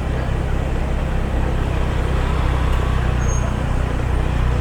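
Steady low rumble of a car's engine and road noise heard from inside the car while it creeps through slow traffic.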